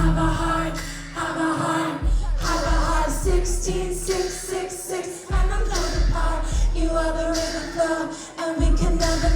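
Live band music: a woman singing the melody over a deep bass that cuts out briefly about every three seconds.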